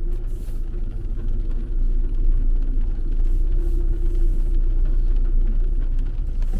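Steady low rumble of a Mercedes-Benz car heard from inside the cabin as it rolls slowly over wet paving.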